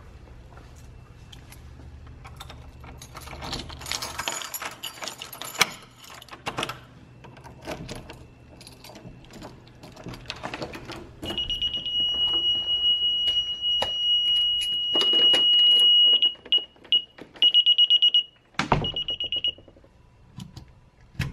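Keys jangling and a door lock being worked, then a home security alarm keypad sounding a steady high-pitched warning beep for about five seconds, followed by several short broken beeps as its buttons are pressed.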